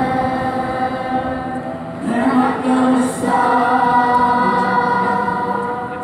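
Large youth choir singing long held notes together, a new phrase coming in about two seconds in.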